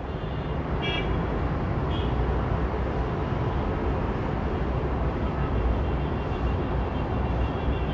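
Steady outdoor background rumble and hiss, heaviest in the low end, with two brief high chirps about one and two seconds in.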